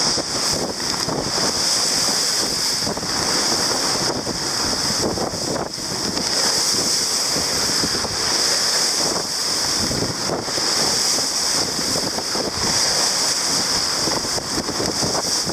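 Steady wind noise and rushing water on a sailboat close reaching at about 8 knots in 20 knots of wind: wind buffeting the microphone over water hissing along the hull.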